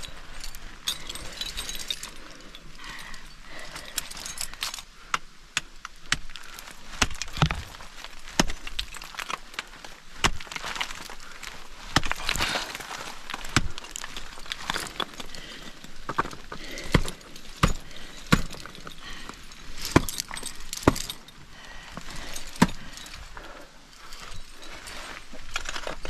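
Ice axe picks and crampon points striking a frozen waterfall: irregular sharp chops and cracks into the ice, with metal climbing gear clinking on the harness.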